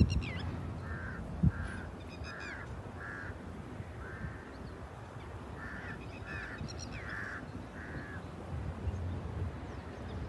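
Birds calling in two runs of about five short, flat calls each, with a few higher chirps among them, over a low steady rumble. There is a single brief thump about one and a half seconds in.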